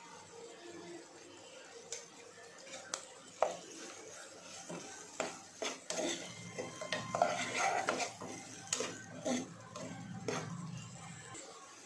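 A metal spoon stirring chopped onions and green chillies in a non-stick pan, clinking and scraping against the pan. A few separate taps come first, then a busy run of scrapes and clicks from about five seconds in.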